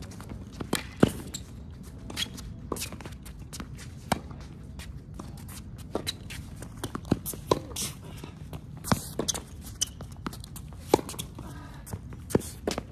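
Tennis rally: sharp racquet strikes on the ball and ball bounces at irregular intervals, the loudest about a second in, with players' footsteps on the court.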